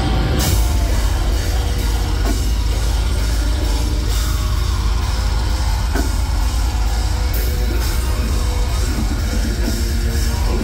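Deathcore band playing live and loud: fast, heavy drumming under distorted guitars, with screamed vocals.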